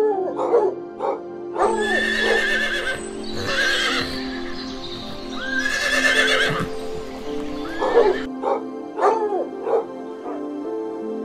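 Horses whinnying several times, long shaky high-pitched calls, over steady background music, with a few short dog yips near the start and again near the end.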